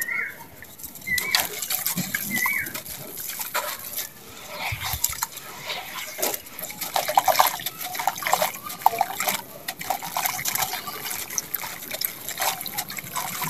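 Hands squelching and squeezing wet sand-cement mud in a shallow pool of water, with irregular wet slaps and splashes. Near the end, dry sand-cement crumbles and trickles into the water.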